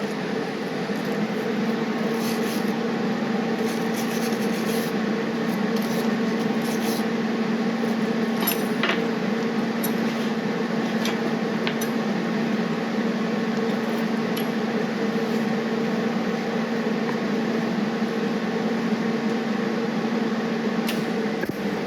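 Gas brazing torch flame hissing steadily, with a constant low hum, as a nut is brazed onto a zinc-plated steel clamp. There are a few light metal clinks.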